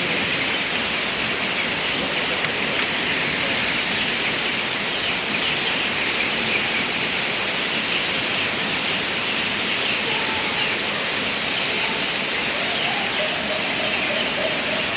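Steady heavy rain, an unbroken hiss of rainfall.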